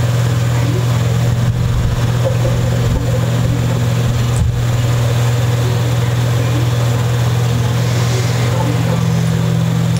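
A steady low hum that holds the same pitch throughout, with one faint click about four and a half seconds in.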